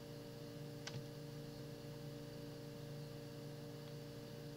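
Steady low electrical hum of several tones over faint hiss, with one soft click about a second in.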